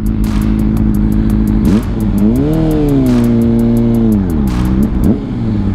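Honda CBR600RR's inline-four engine running in slow traffic. About two seconds in it revs up, holds the higher pitch for a second and a half, then drops back as the bike eases off again.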